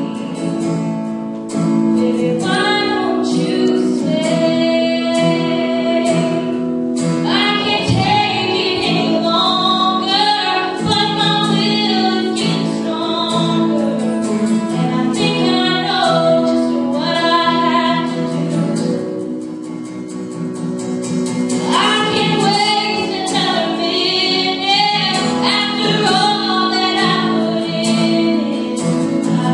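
A young woman singing solo through a handheld microphone in long phrases over sustained instrumental accompaniment, with a brief softer passage about two-thirds of the way through.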